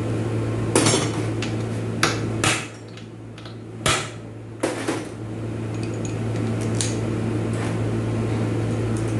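Sharp metal clanks and knocks, about five within the first five seconds and a few fainter ones after, as automatic-transmission parts are handled and knocked during teardown. A steady low fan hum runs underneath.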